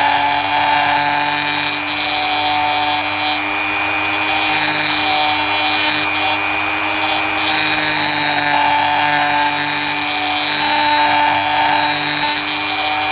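Small handheld rotary power tool running at a steady whine while grinding down the inside fender of a 1:64 diecast car's metal body. The grinding noise swells and eases as the bit is pressed to the metal and lifted.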